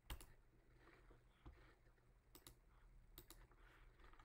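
A few faint, sharp computer mouse clicks, some in quick pairs.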